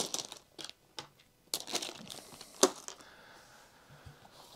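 Plastic bag of small wooden game blocks being handled: a few short crinkles and knocks, the strongest at the very start and about two and a half seconds in, then only faint rustle.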